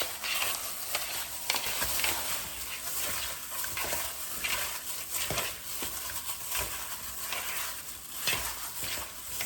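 Gloved hands tossing and squishing seasoned raw chicken wings in a bowl: a continuous wet rustling with many irregular soft squelches and slaps.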